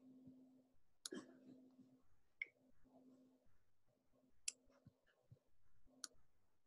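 Near silence: a faint low hum that drops in and out, with four faint, short clicks spread across the few seconds.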